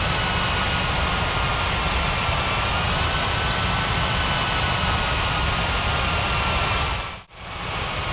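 Airbus A330's jet engines running at low power: a steady rush with high whining tones that waver slightly in pitch. Near the end the sound cuts out for a moment and comes back as a duller, steadier hiss.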